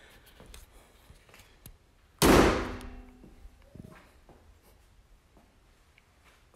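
A Dodge Charger's hood being slammed shut: one sharp bang about two seconds in, with a brief metallic ring after it, then a softer knock.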